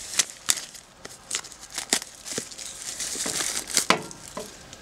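Plastic shrink-wrap being torn and peeled off a 4K Blu-ray steelbook case, crinkling and crackling in a series of sharp crackles, busiest about three to four seconds in.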